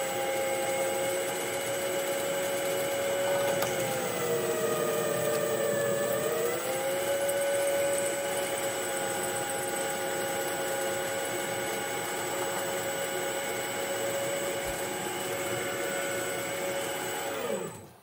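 DIY CNC lathe's spindle running, spinning a galvanized pipe tee in a three-jaw chuck while a 5 mm drill bores a hole for tapping: a steady whine that sags briefly in pitch about four to six seconds in, then winds down and stops near the end.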